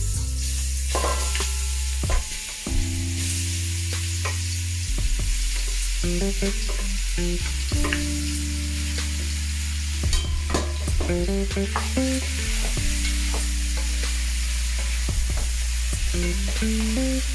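Pieces of oxtail sizzling as they fry in hot oil in a pot on high heat, with scattered scrapes and knocks of a spoon stirring them to brown the meat.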